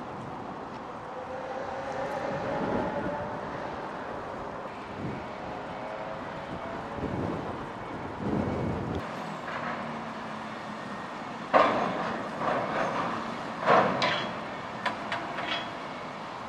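Terminal tractors moving trailers at a ferry loading ramp: an engine drone that rises and falls in pitch, then loud metallic clanks and rattles twice, about twelve and fourteen seconds in, with smaller knocks after.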